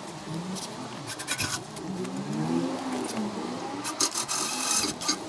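Rubbing and scraping of hand work on a truck's front number plate mount, with a louder scraping stretch about four seconds in.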